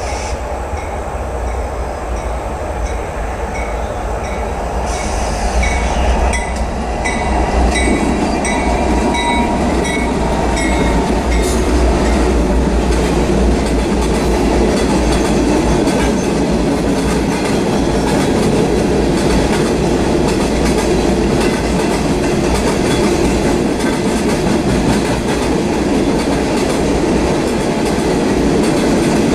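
Norfolk Southern freight train passing close by: steady rumble and clickety-clack of the cars' wheels on the rails, growing louder about seven seconds in as mid-train diesel locomotives come by. Thin high wheel squeal in the first ten seconds or so.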